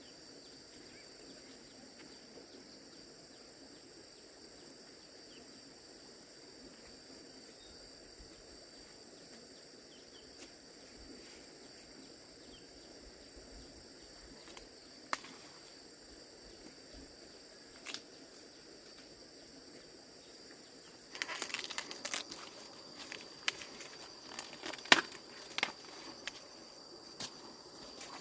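Steady high insect chirring over quiet field ambience. About three quarters of the way in, dry corn leaves and husks start rustling and crackling as they are handled.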